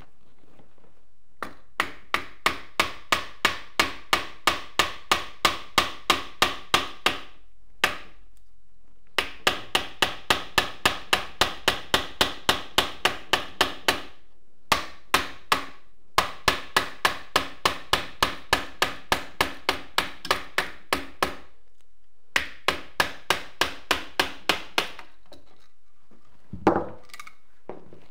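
Rapid hammer blows on the RPK's wooden fixed buttstock, about three a second, in five runs with short pauses between them, driving the stock rearward off the rifle's rear trunnion. A single duller knock comes near the end.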